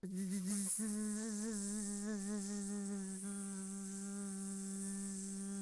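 A person's voice making a long, sustained buzzing 'bzzz', mimicking the buzz of a welder. The pitch wavers for the first few seconds, then holds steady.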